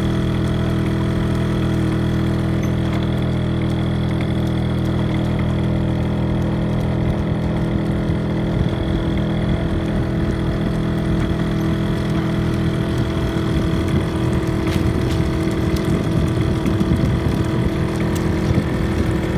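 Vehicle engine running steadily at an even speed while on the move, with rougher road and wind rush mixed in from about the middle onward.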